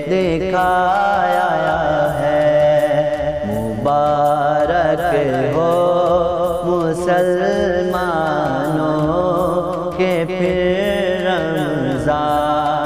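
A male voice sings a Ramzan naat, an Urdu devotional song, in long, held, wavering melodic lines over a steady low backing and a faint regular beat.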